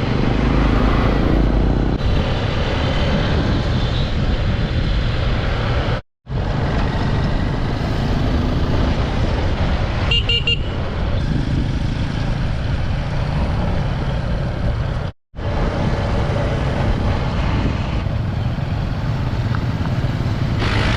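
Riding a Honda 150cc dirt bike: a steady engine-and-road noise with heavy wind rumble on the camera microphone, and a short horn toot about ten seconds in. The sound cuts out briefly twice.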